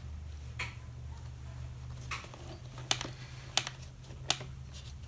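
Scattered light clicks and taps of small hard parts from a butane soldering iron kit being handled, about six in all, the sharpest near the middle, over a low steady hum.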